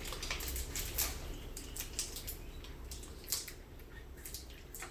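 Chocolate wrapper crinkling in a run of short, sharp crackles as the chocolate is taken out of its opened package.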